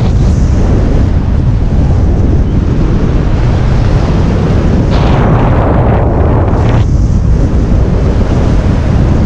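Wind buffeting the microphone of a jumper's body-mounted camera under an open parachute in flight: a loud, steady rushing rumble that gusts a little louder about five and six seconds in.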